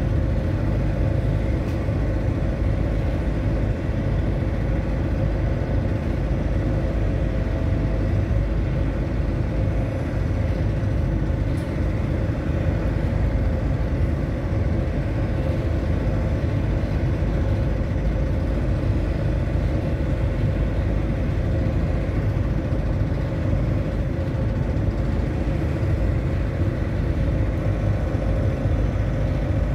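Steady low engine rumble with a constant hum, unchanging throughout.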